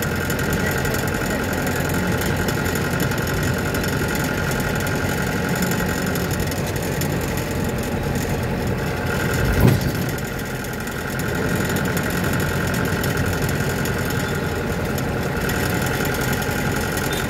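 Car engine and tyre noise heard from inside the cabin while driving steadily, with one thump about halfway through.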